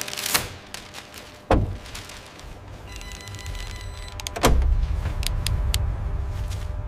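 Cinematic sound effects in a break in the music: whooshes that fall in pitch, the two loudest about a second and a half and four and a half seconds in, the second trailing into a deep low rumble, with scattered clicks between.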